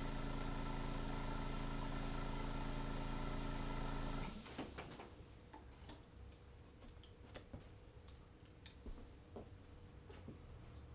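Small airbrush compressor running with a steady hum and air hissing through the line (blow-by), then cutting off suddenly about four seconds in. Faint scattered ticks and clicks follow.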